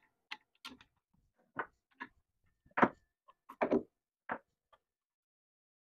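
Scattered metallic clicks and knocks of a router bit being changed in a CNC spindle: wrenches clinking on the collet nut and tools set down on the table. About eight separate knocks, the loudest about three seconds in, followed by a quick cluster.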